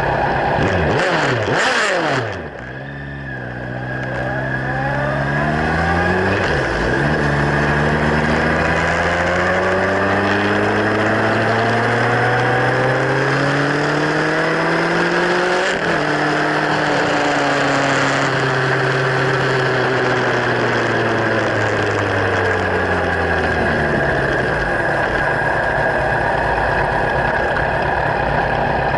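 Kawasaki Z1000 inline-four running through LeoVince slip-on exhausts. The engine note climbs slowly in pitch for over ten seconds, drops suddenly about halfway through, then falls away gradually and settles.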